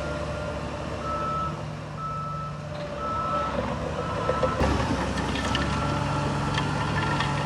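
A heavy construction machine's reversing alarm beeping about once a second over its diesel engine's rumble. About two-thirds of the way through, a sudden jolt is followed by scattered metallic clanks.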